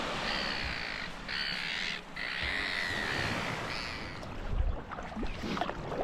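A bird calling over and over, several calls in a row for about four seconds, then stopping. A few scattered knocks follow near the end.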